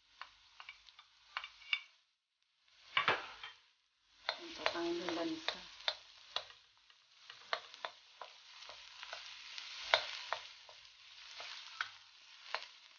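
Diced onion and ginger frying in a stainless steel wok, a light sizzle that comes and goes, with a wooden spoon stirring and scraping through it and knocking sharply against the metal many times.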